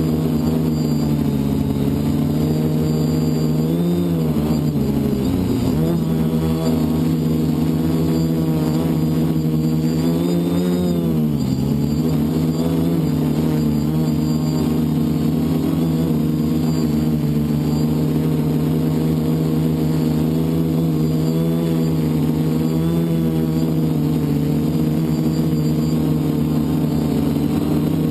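FPV multirotor drone's electric motors and propellers buzzing steadily, the pitch dipping and climbing back a few times in the first half as the throttle changes.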